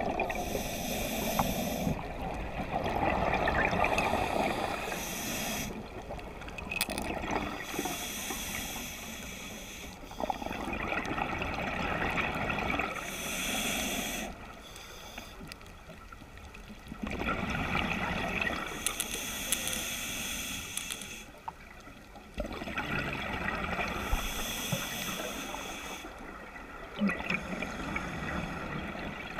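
Scuba diver breathing through a regulator underwater: exhaled bubbles gurgling, then hissing inhales, in several slow breath cycles roughly every five seconds.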